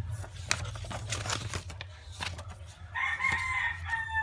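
A rooster crowing, one drawn-out call starting about three seconds in, over scattered clicks and rustles of packaging being handled.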